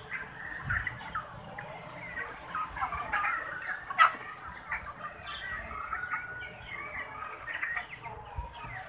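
A flock of chickens clucking and calling, many short calls overlapping, with one sharp click about four seconds in.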